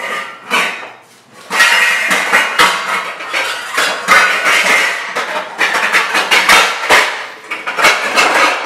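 Pots and pans clattering and knocking together as someone rummages through a pan drawer, looking for a pan. A couple of knocks at first, then near-continuous clanking from about a second and a half in.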